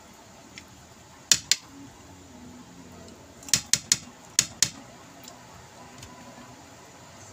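Metal spoons clinking against a plate and papaya halves as the flesh is scooped out: two sharp clicks about a second in, then a quick run of five clicks around the middle.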